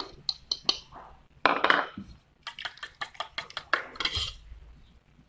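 A metal spoon tapping and scraping grated carrot out of a glass bowl into a stainless-steel pot, then clinking against the pot while stirring beaten eggs. There are many quick taps, with a longer scrape about one and a half seconds in and another near the four-second mark.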